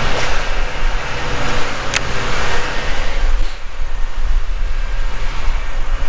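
Wind buffeting the microphone, a loud, uneven rumble, with a single sharp click about two seconds in.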